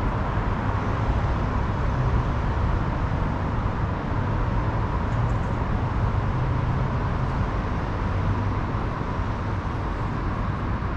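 Steady outdoor traffic noise: a continuous low road rumble with no distinct events.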